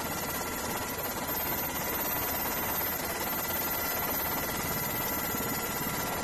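Steady helicopter engine and wind noise in flight: an even rushing hiss with a faint high whine.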